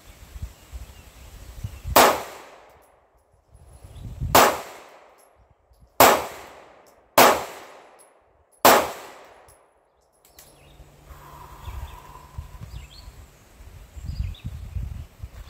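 Five single shots from a Sig Sauer P226 pistol, fired slowly one at a time over about seven seconds, each with a short ringing tail. This is a deliberate slow-fire string of five aimed shots.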